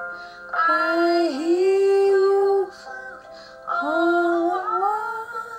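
A woman singing two long, held phrases over piano accompaniment, with a short pause between them. The song is played back through a computer's speakers while a second woman sings along.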